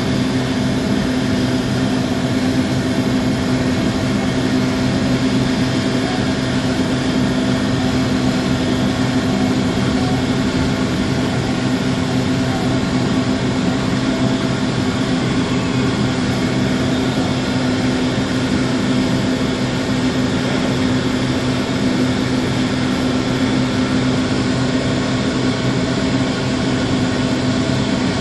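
Paint spray booth's ventilation fans running: a steady hum over an even rush of moving air.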